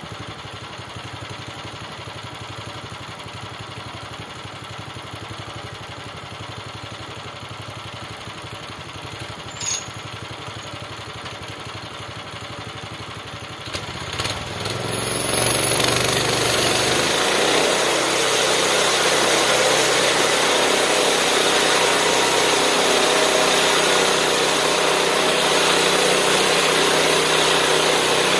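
Small gasoline engine of a homemade bandsaw sawmill idling steadily, then revved up about halfway through to a loud, steady full-speed run as the mill is brought up to cutting speed.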